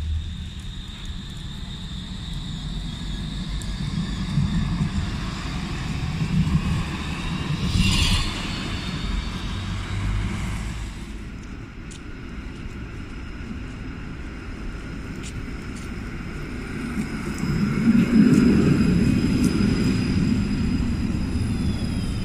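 City trams running on street track: a steady low rumble of wheels on rails, with a thin high electric whine through the first half. The rumble is loudest a little before the end as a tram passes close.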